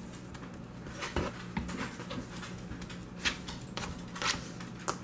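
Soft, scattered pats and scrapes of raw biscuit-dough pieces being scooped by hand and pushed off a plastic cutting board into a bowl.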